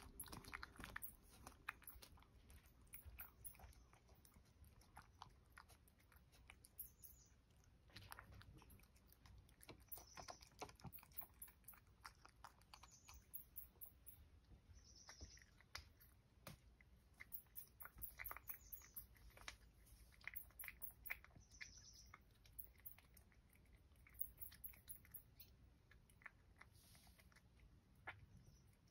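A cat eating from a bowl: faint, irregular chewing and licking clicks.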